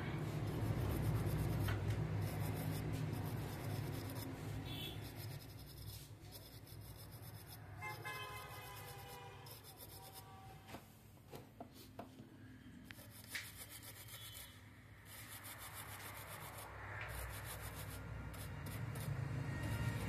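Small rubbing and a few light clicks as a keypad phone's circuit board is handled and brushed, over a steady low background rumble. A short honk-like tone comes about eight seconds in.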